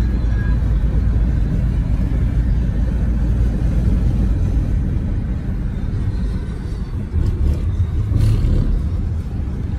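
Steady low rumble of road and engine noise heard from inside a car cruising on a highway, with a few brief knocks and a louder thump about eight seconds in.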